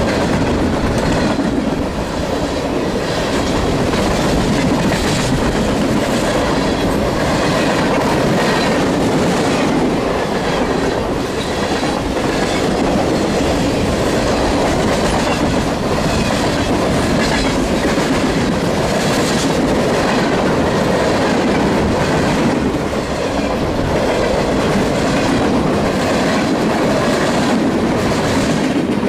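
Mixed freight train of boxcars and centerbeam lumber flatcars rolling past close by at speed. A steady, loud rumble of steel wheels on rail, with repeated clicking and clattering as the wheel sets cross rail joints.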